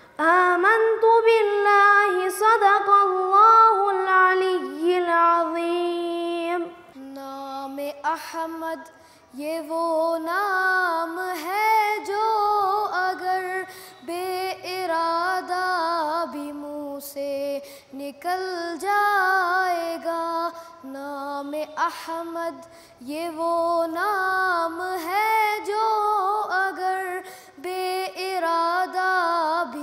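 A single high voice singing an Islamic devotional song (naat) without accompaniment, in flowing ornamented phrases broken by short pauses.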